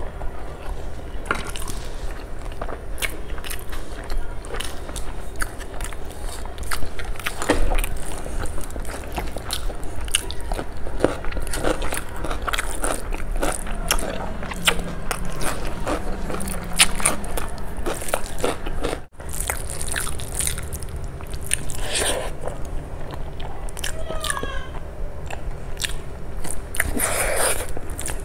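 Close-miked eating sounds: chewing and lip smacking as rice mixed with kadhi is eaten by hand, with many small mouth clicks throughout.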